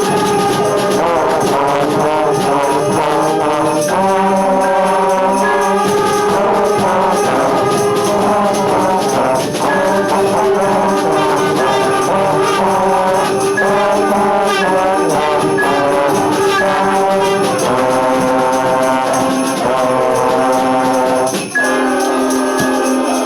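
Trombone playing a festive melody over an orchestral backing track with jingle bells, with a brief break about three-quarters of the way through before held closing notes.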